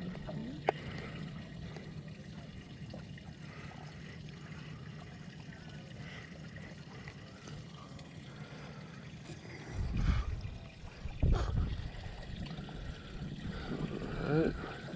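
Water trickling and lapping around a small fishing boat over a steady low hum, with two dull thumps about ten and eleven seconds in.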